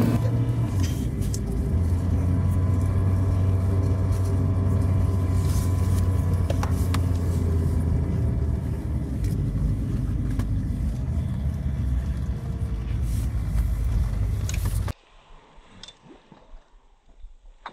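Car engine and tyre noise heard from inside the cabin while driving, a steady low drone. It cuts off suddenly near the end, leaving only faint outdoor sounds.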